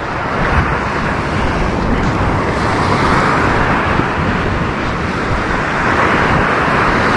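Steady rush of surf breaking and washing on the beach, with wind rumbling on the microphone.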